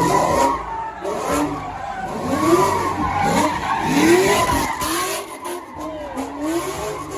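Car engine revving in repeated rising surges, about once a second, while its tires squeal and skid on the pavement.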